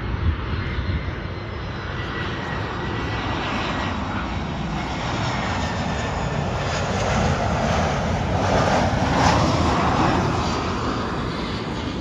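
Jet airliner passing low overhead on its landing approach. The engine noise swells to a peak about nine seconds in, then eases off as it goes away.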